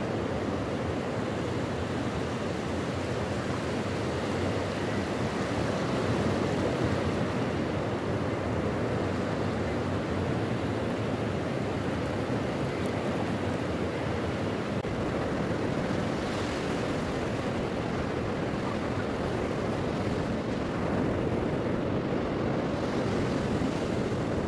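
Ocean surf breaking and washing up a flat sandy beach, a steady rush of waves, with some wind on the microphone.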